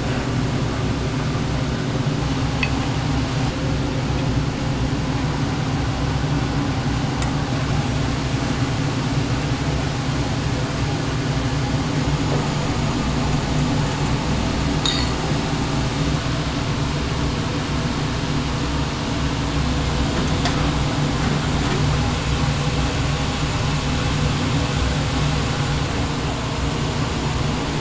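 Steady low drone like a kitchen ventilation fan running, with a few faint clicks.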